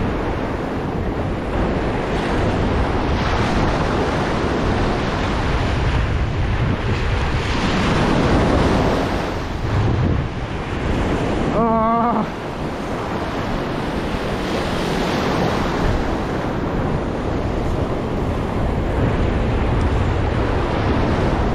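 Ocean surf breaking and washing in the shallows, with wind buffeting the microphone. About halfway through, a brief wavering tone sounds for about half a second.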